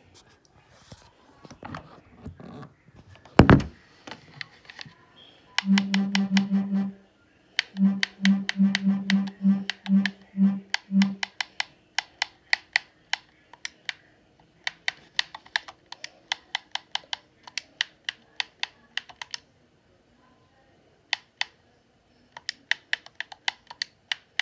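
Bursts of rapid clicking, like keys being typed on a keyboard. A loud thump comes early on. A low buzzing tone is held for about a second and then pulsed about eight times in quick succession around the middle.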